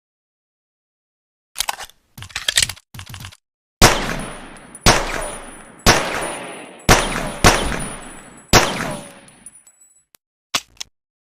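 Pocket pistol: a few short mechanical clicks, then six shots fired about a second apart, each followed by a decaying echo. Two more small clicks come near the end.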